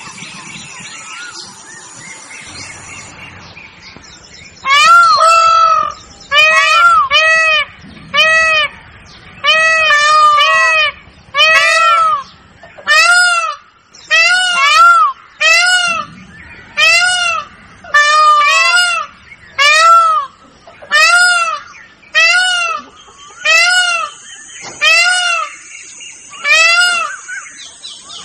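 Indian peafowl (peacock) calling loudly over and over, short arched calls about one a second, starting about five seconds in. A faint high-pitched steady tone runs along in the last few seconds.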